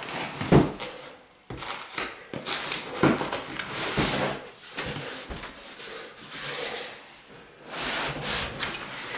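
A cardboard moving box being folded together and handled: irregular rubbing and scraping of cardboard with a few sharp knocks.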